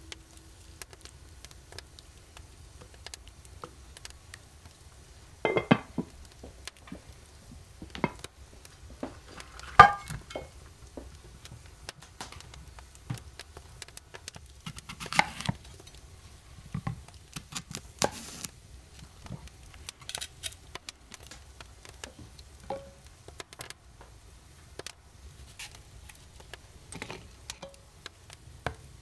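Kitchen work sounds: scattered clinks, taps and knocks of dishes and utensils being handled, with the loudest knock about ten seconds in and a few others around six, fifteen and eighteen seconds.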